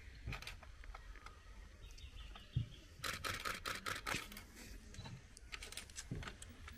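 Camera shutters firing in rapid burst-mode clicks, the densest bursts about three to four seconds in and another shorter burst near the end.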